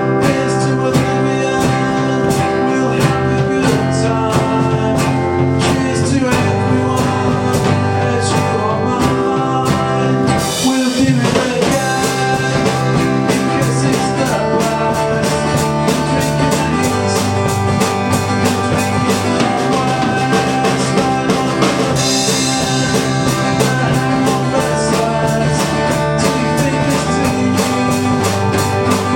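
Three-piece rock band playing live: drum kit, bass guitar and guitar together, with a steady beat.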